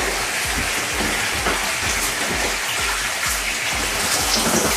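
Water running from a bath tap into a filling bathtub, a steady rushing hiss, under background music with a steady low beat.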